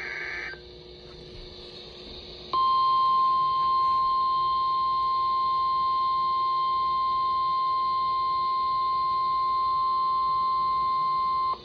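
NOAA Weather Radio receiver: a half-second burst of SAME digital header tones, a couple of seconds of radio hiss, then the 1050 Hz warning alarm tone, one steady pure tone held about nine seconds that cuts off sharply. The alarm tone signals that a warning broadcast, here a flash flood warning, is about to be read.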